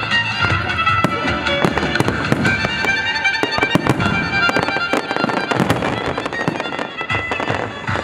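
Fireworks display: shells and fountains banging and crackling in quick, dense succession, over music with long held notes.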